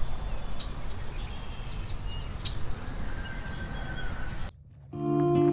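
Small birds chirping over a steady low outdoor rumble. About four and a half seconds in, the sound cuts out briefly and acoustic guitar music begins.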